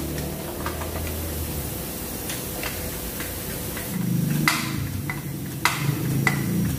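Sharp metallic clicks with a brief ring, coming evenly about every half second and growing louder about four seconds in, over a low hum, from tool work under a car.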